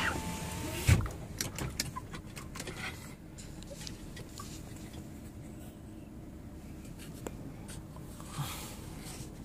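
Inside a pickup truck cab at a conveyor car wash: a power window whirs up and thumps shut about a second in, followed by a few sharp clicks. After that comes a steady low hum of the truck and the wash machinery.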